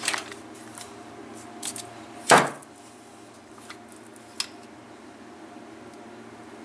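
Metal clinks and knocks of a gear-reduction car starter being taken apart by hand, its parts knocking together, with one louder clunk a little over two seconds in.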